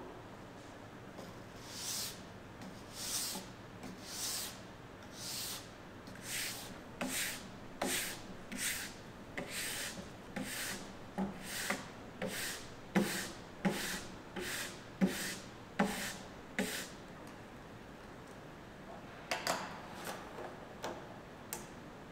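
A hand-held ski-tuning block drawn along the base of a ski in repeated rasping strokes, about one a second and quickening toward the middle, then a few quick knocks near the end.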